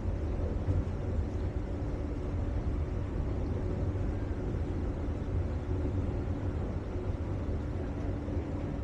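A tour boat's engine running steadily: a low, even drone with a few faint humming tones over it.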